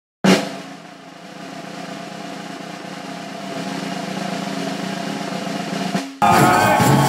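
Drum roll that opens with a sharp hit, then swells steadily in loudness and cuts off suddenly about six seconds in.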